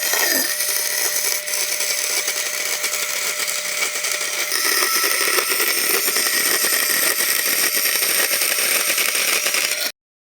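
Power tool running steadily and loud, stopping abruptly near the end.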